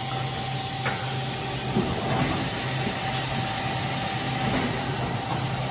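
OKK HM-6300S CNC horizontal machining center running under power through a program: a steady low hum with a thin steady tone over an even hiss.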